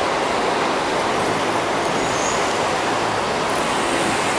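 Steady rumble of road traffic and a receding train at a railway level crossing, with no warning bell sounding.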